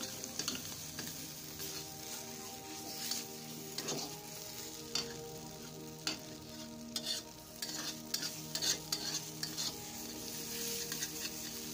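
A flat metal spatula stirs and scrapes thick mashed yardlong-bean paste around a black iron kadai, with irregular scrapes and taps against the pan. The paste sizzles softly in mustard oil as it is fried until its water dries off.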